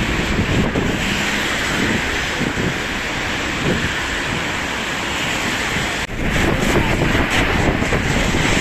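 Wind buffeting the microphone over a steady rushing noise of rain. The sound breaks off abruptly about six seconds in and then carries on.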